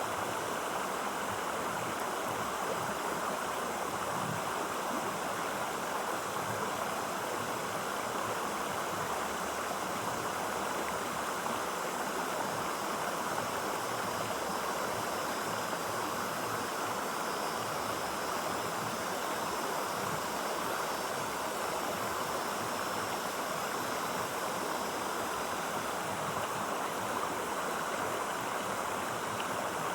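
Clear stream water flowing and splashing over rocks, a steady rushing with no pauses.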